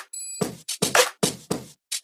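Electronic trap DJ beat: a string of sharp drum-machine hits, with a short high bell-like chime just after the start.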